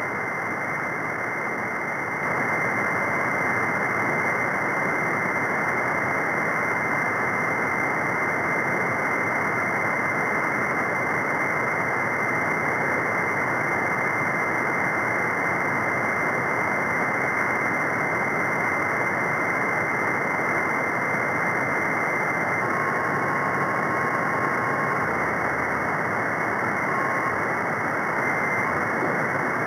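Steady radio static from an SDRplay receiver tuned to the CB free band between transmissions: an even hiss held within a narrow voice passband, a little louder from about two seconds in. Faint short whistles come in near the end.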